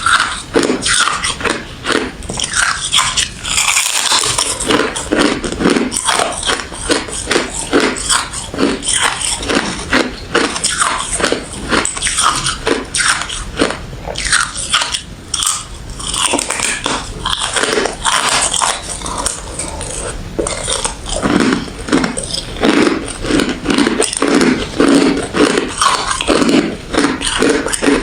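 Close-up crunching of ice being bitten and chewed: rapid, continuous crackling and crushing of refrozen crushed ice and frosty freezer ice between the teeth.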